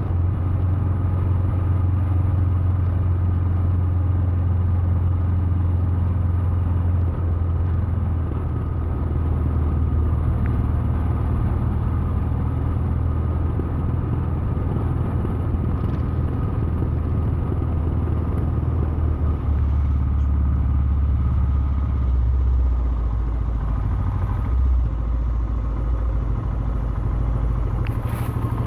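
2017 Royal Enfield Himalayan's 411 cc single-cylinder engine running as the bike rides, its low note dropping in steps several times, lowest in the last few seconds.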